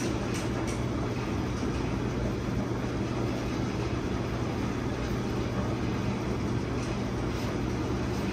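Steady low machine hum, with a few faint clicks and knocks from hand work on the engine.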